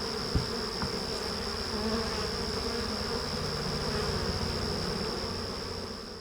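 Honeybees buzzing steadily, with one short knock about half a second in; the buzzing fades out near the end.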